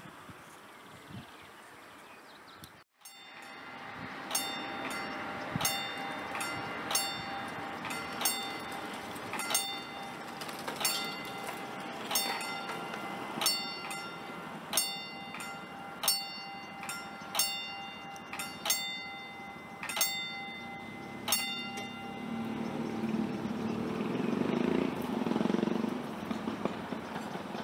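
Level crossing warning bell striking at an even pace, about once every 1.3 seconds, fourteen strikes in all. After it stops, a train's rumble swells as it approaches.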